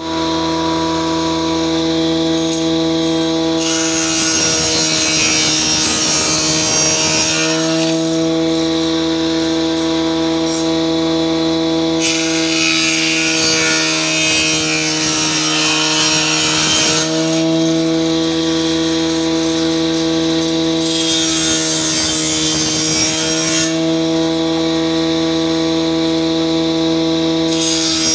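An electric woodworking power tool's motor running at a steady high pitch, cutting wood in several long passes. The hiss of the cut comes and goes three or four times, and the motor's pitch drops slightly under each cut.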